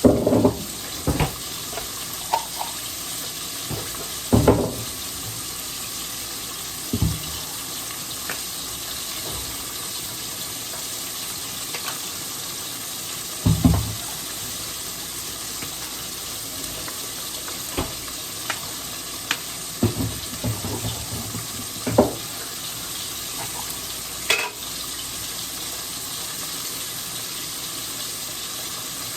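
Chicken tenders frying in oil with a steady, even sizzle, broken by a few short knocks and clatters scattered through it.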